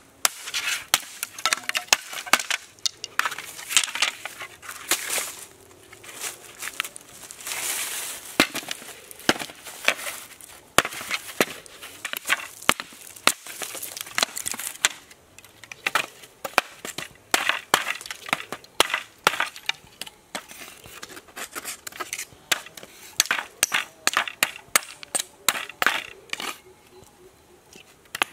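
Machete chopping and whittling bamboo: a long run of sharp cracks and knocks at an uneven pace, with stretches of dry crackling between the strokes.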